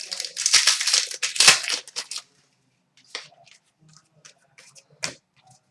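Crinkling and tearing of a trading card pack's foil wrapper, dense for about the first two seconds, followed by a few light clicks of cards being handled.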